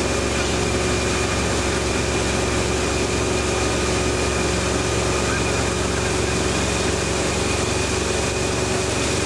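Towing motorboat's engine running steadily at speed, a constant drone under a steady rush of wind and churning wake water.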